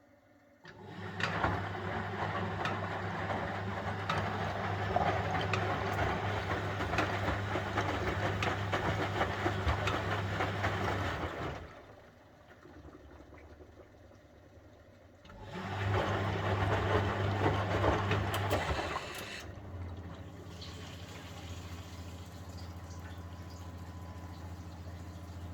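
1971 Constructa Garant 491 washing machine running its wash cycle: the drum motor hums with water sloshing in the drum. It stops about 11 seconds in and starts again about four seconds later for a few seconds. A quieter steady hum then carries on.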